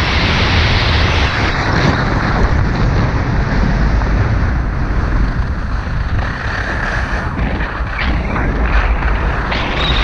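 Wind rushing over a GoPro Hero 5's microphone at skiing speed, mixed with skis scraping over packed, chopped-up snow. The rush eases a little past the middle as the skier slows, and a few short ski scrapes stand out near the end.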